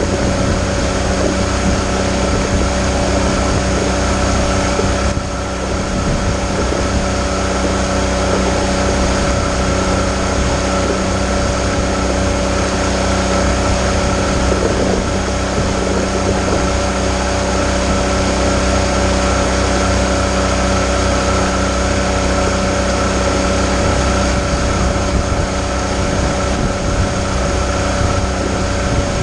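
Tohatsu MFS50 four-stroke outboard motor running steadily at cruising speed, with water rushing and splashing against the hull.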